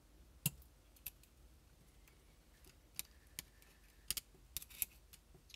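Light, sharp clicks of small plastic wire plugs and a pick tool as the plugs are worked out of a paintball marker's circuit board. The clicks come irregularly, about eight in all, the loudest about half a second in and a cluster between three and five seconds.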